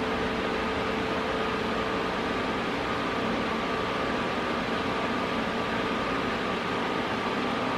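Everlast Power MTS 251 SI multi-process welder switched on and running, a steady whirring hum with a faint constant whine.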